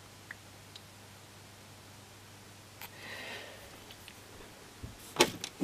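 Quiet bench room tone with a faint steady low hum, a soft rustle about three seconds in, then a quick run of sharp clicks and clatter near the end as things on the workbench are handled.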